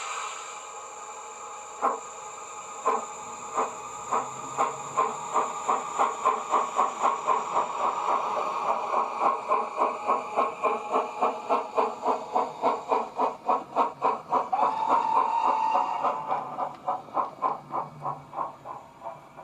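Model steam locomotive's DCC sound decoder playing a two-cylinder Southern steam sound file through the model's small speaker: a hiss of steam, then exhaust chuffs that start slow and quicken steadily to about four a second as the loco pulls away. A brief steady tone sounds about three quarters through, and the chuffs die away near the end.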